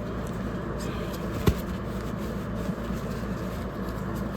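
Steady low background hum with a single sharp click about a second and a half in.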